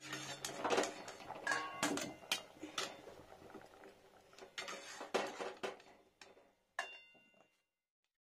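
Metal utensils clinking and knocking against an aluminium pan as cut arum pieces are tipped from a steel bowl into water, with a perforated skimmer in the pan. One clink near the end leaves a short metallic ring.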